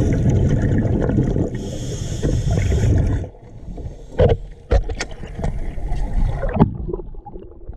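Dense rumbling and bubbling of churned river water, with a high hiss, stopping abruptly about three seconds in. A few separate knocks follow as a heavy object is handled.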